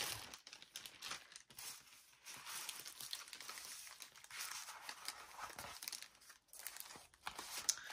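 Clear plastic bag crinkling and paper sheets rustling as they are handled, faint and irregular, with a few sharp clicks.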